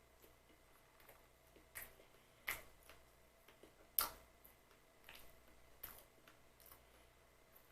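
Close-up eating sounds of fresh berry pie: a string of soft, irregular clicks and snaps, with the sharpest about two and a half and four seconds in.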